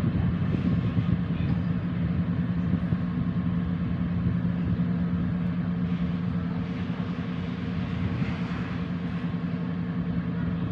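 Boat engine running steadily with a constant low hum, with a wash of water and wind noise over it.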